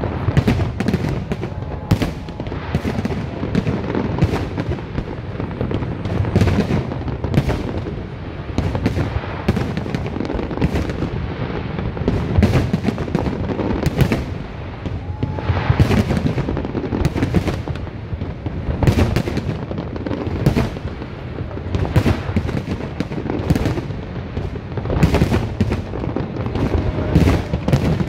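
Large fireworks display: a dense, continuous barrage of aerial shells bursting, with many sharp bangs and crackles over a constant low rumble.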